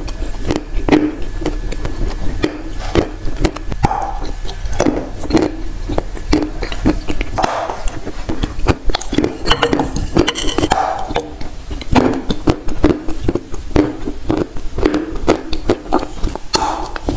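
Close-miked biting and chewing of dry chunks of Turkestan edible clay: a dense run of sharp cracks and crunches as pieces snap off and are ground between the teeth, with mouth sounds in between.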